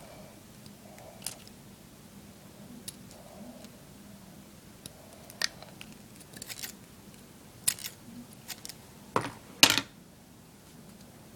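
Scissors snipping and clicking as they cut the string off a small fishing hook, in scattered short snips, with two louder sharp clacks a little before the end.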